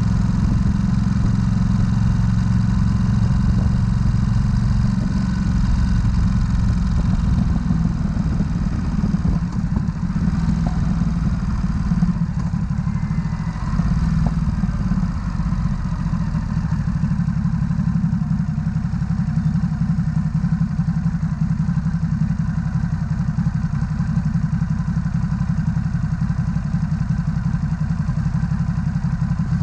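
Ducati SuperSport S's 937 cc L-twin engine running at low road speed as the bike slows, idling at a standstill near the end.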